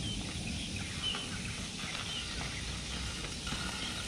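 Outdoor ambience: a steady low rumble of wind on the microphone, with a few faint short bird chirps. A faint steady high tone comes in near the end.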